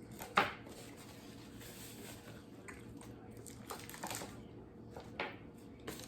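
Eating sounds from a sandwich being handled and chewed: scattered soft rustles and clicks, the sharpest about half a second in, over a faint steady hum.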